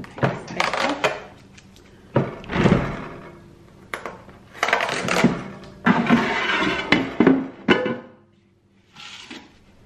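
Hard plastic knocks and scrapes of a Ninja Max air fryer's basket drawer being pulled out and handled, in a string of short noisy bursts with a quieter gap near the end.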